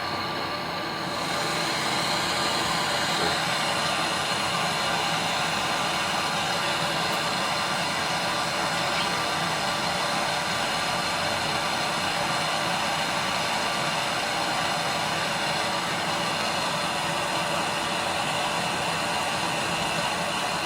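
Gas torch flame burning with a steady hiss while a copper refrigerator pipe is brazed to the filter drier. The hiss gets louder about a second in, as the flame is opened up or brought to the joint, then holds steady.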